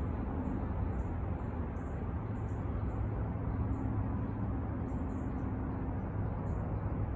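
Outdoor ambience: a steady low rumble, with short high-pitched chirps repeating about twice a second over it.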